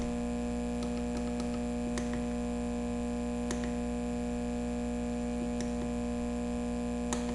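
Steady electrical hum made of many fixed pitches, with a few faint clicks spread through it as the buttons of a transmitter's front-panel display keypad are pressed.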